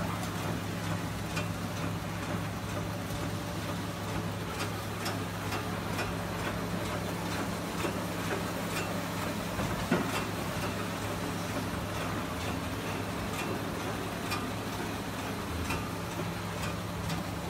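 Automatic tableware-set (cutlery and napkin) packing machine running: a steady low hum with scattered light clicks and ticks, and one sharper knock about ten seconds in.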